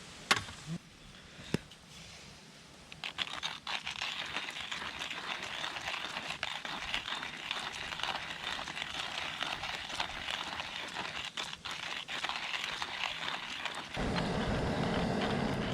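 A wood fire crackling and hissing as it catches: a few sharp pops at first, then from about three seconds in a dense run of small crackles. Near the end it gives way to a steadier, lower rush.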